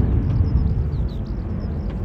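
Jet airliner climbing away after takeoff, its engines a low rumble that slowly fades, with small birds chirping faintly.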